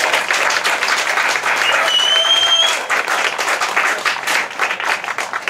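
Crowd applauding, with dense clapping throughout. A short high whistle comes about two seconds in, and the clapping thins out near the end.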